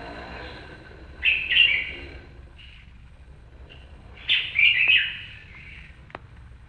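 A bird chirping in two loud bursts of quick calls, the first about a second in and the second about three seconds later, with a few fainter chirps between them.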